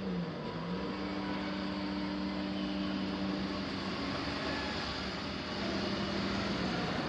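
Electric train running at a railway level crossing: a steady rumble with a low hum that dips briefly in pitch about half a second in.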